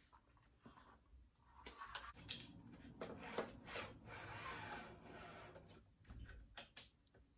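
Handling noises as a ring light is fitted onto its light stand: scattered light clicks and knocks, with a stretch of rubbing and scraping about three to five seconds in.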